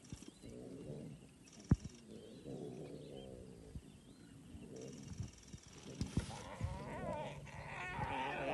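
Lion cubs calling while feeding: a series of wavering, pitched cries, low at first, then higher and louder from about six seconds in. A single sharp knock comes just under two seconds in.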